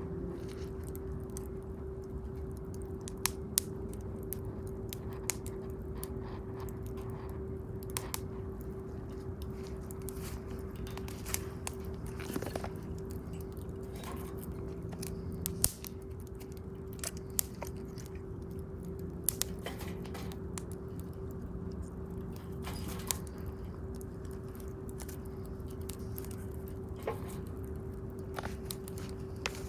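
Wood bonfire crackling, with irregular sharp pops of burning wood, a few much louder than the rest, over a steady low rumble and a faint steady hum.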